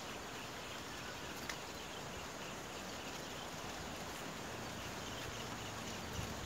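Outdoor insect chirping: faint, rapidly repeated high chirps over a steady hiss, with a single faint click about one and a half seconds in.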